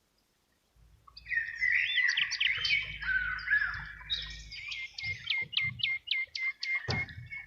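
Birdsong sound effect: after a moment of silence, birds begin chirping about a second in, with sweeping and trilling calls, then a run of short repeated notes, about three a second, near the end.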